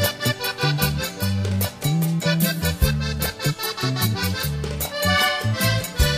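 Instrumental vallenato music: a diatonic button accordion plays the melody over a moving bass line and a steady percussion beat, with no singing.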